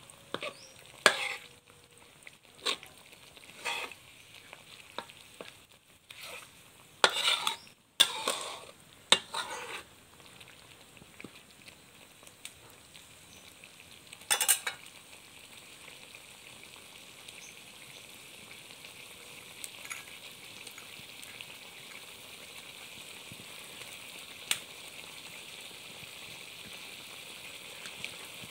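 A spatula scraping and stirring chicken panang curry in a metal wok, in separate strokes over the first ten seconds and once more a few seconds later. Then the thick coconut-milk curry sizzles and bubbles steadily in the wok, slowly growing louder.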